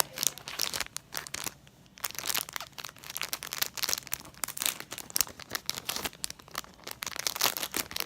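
Packaging crinkling as it is unwrapped by hand, in quick irregular crackles with a short pause about one and a half seconds in.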